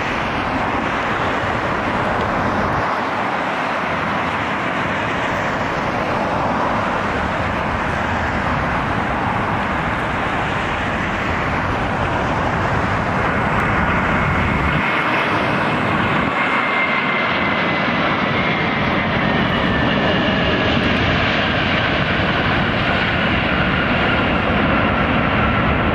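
Airbus A320 jet airliner landing, with the steady roar of its twin turbofan engines. A faint whine slowly falls in pitch through the second half as the jet rolls out on the runway.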